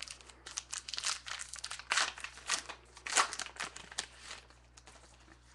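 Wrapper of a 2012 Topps Gypsy Queen baseball card pack crinkling and tearing as it is pulled open, a run of crackles loudest about two and three seconds in, then dying away.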